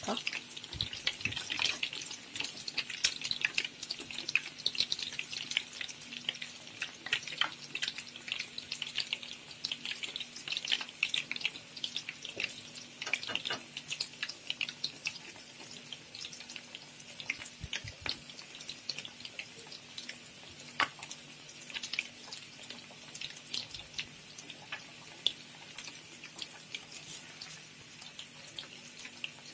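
Slices of egg-and-milk-soaked bread shallow-frying in hot oil: a crackling sizzle of popping oil, busiest in the first half and thinning out toward the end.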